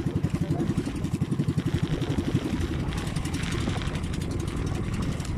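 Small engine of a bangka outrigger boat running with a steady, rapid chugging beat, under a wash of wind and water.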